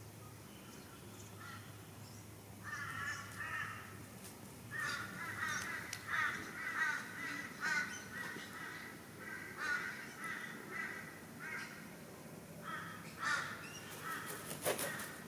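A crow cawing: runs of harsh, rapidly repeated caws, starting about three seconds in and coming again and again, with a few sharp clicks near the end.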